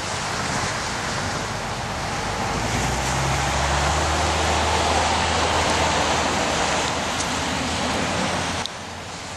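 Railway speeders (track motorcars) running along the rails: a low, steady engine hum that swells in the middle under a constant rushing noise. The sound drops suddenly near the end.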